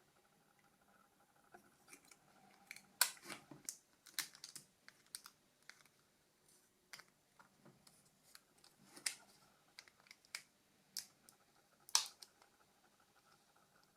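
Irregular small clicks and taps from handling the parts of a Nokia E90 phone during disassembly. The sharpest clicks come about three seconds in and again about two seconds before the end.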